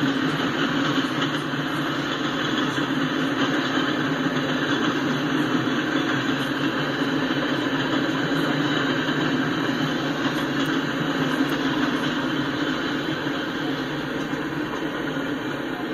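Freight cars rolling past: the steady noise of steel wheels running on the rails, easing off slightly near the end as the tail of the train goes by.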